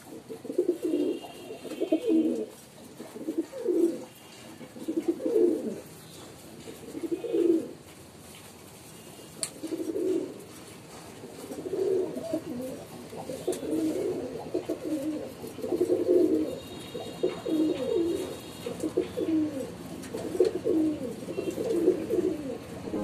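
Domestic pigeons cooing in a loft: low, throaty coos come every second or two at first, then run almost without a break and overlap from about halfway on.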